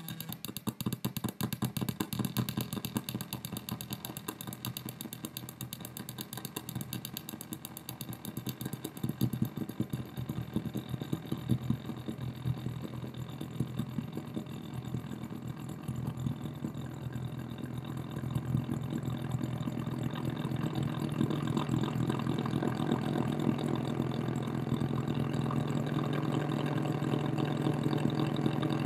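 Electronic noise from a solar cell picking up flashing strobe lights, fed through delay and distortion pedals into an amplifier and speaker. It is a rapid pulsing buzz over a steady low hum, and it grows louder and thicker through the second half.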